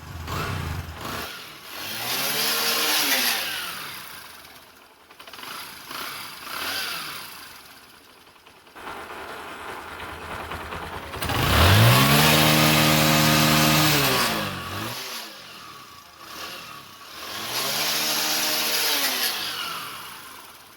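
Bajaj Discover 100's single-cylinder four-stroke engine revved up and back down four times, the longest and loudest rev about halfway through. The engine has a new oil pump fitted to cure a lack of oil circulation, and the mechanic presents it as now running smoothly.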